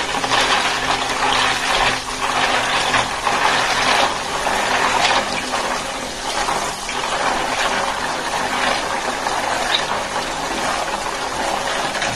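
Tap water pouring steadily into a plastic basin of freshwater snails while hands stir and scrub them, washing the snails, with occasional small clicks.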